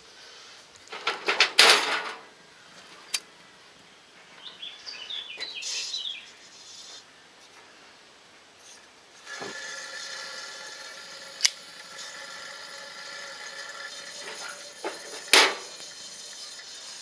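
Two-burner pressurised camp stove running on unleaded petrol, handled and lit: metal clatter in the first two seconds, a brief rattle around five seconds, then about nine seconds in the burner catches and settles into a steady hiss as it flares with a tall yellow flame, with two sharp metallic clicks over it.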